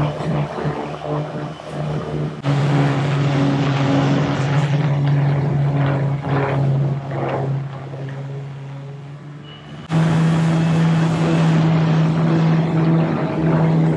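Electric handheld grinder-sander motor whining steadily while grinding and sanding down boat fibreglass. It gets louder about two seconds in, eases off a little past the middle, and comes back louder and slightly higher-pitched about ten seconds in.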